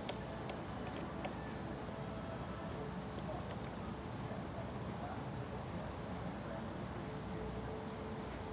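A cricket calling: a steady high-pitched pulsed chirp, about nine pulses a second, over faint background hiss. A few faint clicks sound in the first second or so.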